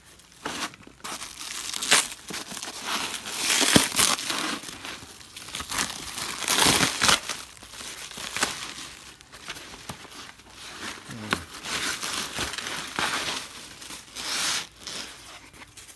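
Clear plastic cling wrap being pulled off a package by hand, crinkling and tearing in irregular bursts.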